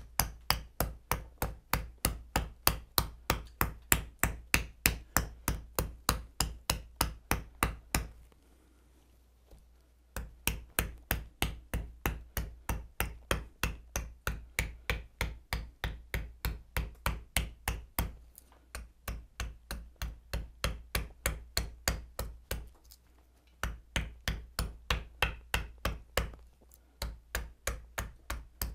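A plumper, a hammer-like hollowing tool, striking rapidly and steadily into the bowl of a wooden spoon to hollow it and dig out a dark flaw in the wood. The strikes come in runs, with a pause of about two seconds some eight seconds in and shorter breaks later.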